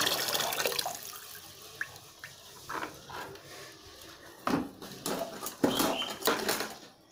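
Water gushing into a plastic basin, cutting off about a second in, followed by scattered splashes and knocks of things being handled in water.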